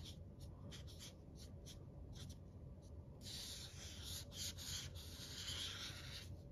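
Black felt-tip marker scratching on drawing paper: short separate strokes as letters are written, then one longer continuous stroke from about three seconds in as a speech bubble is drawn around the word. The scratching is quiet.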